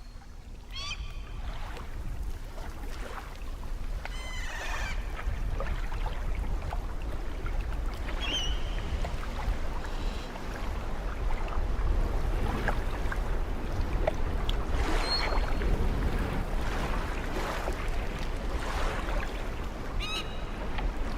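Ominous noises from the sea: a steady low rumble and wash of noise that slowly grows louder, with short wavering cries that slide in pitch breaking through about five times.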